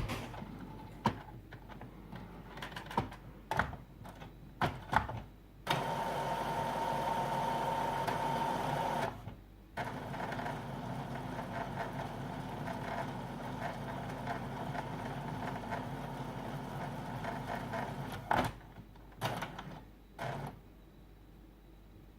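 Epson WorkForce WF-3620 inkjet printer charging newly installed ink cartridges. Its mechanism gives scattered clicks, then runs with a steady whir for about twelve seconds with a brief break near the middle, followed by a few more clicks.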